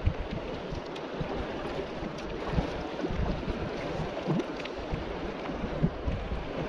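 Wind buffeting the microphone in irregular low gusts, with water lapping.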